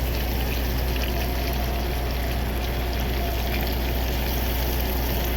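Seasonings and vegetables sizzling steadily in a skillet, with faint crackles, over a steady low hum.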